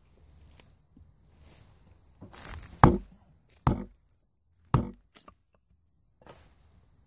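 Small hatchet chopping into a thin stick of wood laid across a log: three sharp strikes about a second apart, the first the loudest, with a few softer knocks around them.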